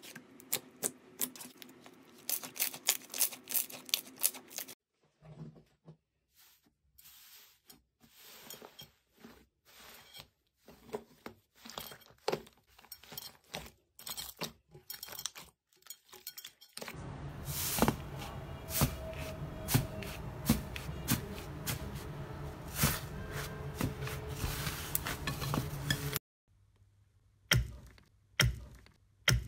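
Slime being squeezed and poked, making many sharp crackling clicks and pops, in several short clips that cut from one to the next.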